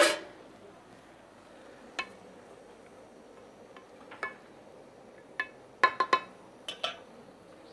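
Light knocks and clinks of a wooden spoon against an aluminium cooking pot as rice is stirred: single clinks about two and four seconds in, then a quick run of several about six seconds in, over a faint steady hiss.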